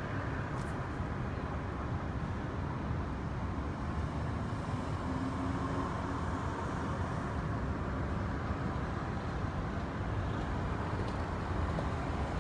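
Steady low rumble of distant city traffic, even throughout, with no calls from the crows.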